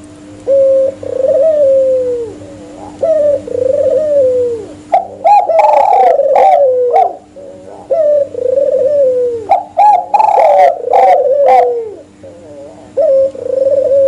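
Spotted dove and white ringneck dove cooing: repeated coos, each falling in pitch. From about five seconds in the calls grow louder and overlap.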